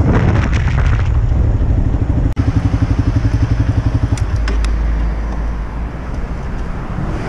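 Motorcycle engine running at low revs. A sharp knock comes about two seconds in, then the engine pulses evenly for about two seconds before settling into a low rumble.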